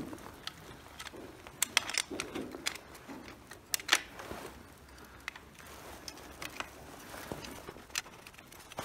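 Scattered light metallic clicks and taps of a thin metal motorcycle sprocket cover and its screws being handled and fitted against the engine casing, over soft handling noise.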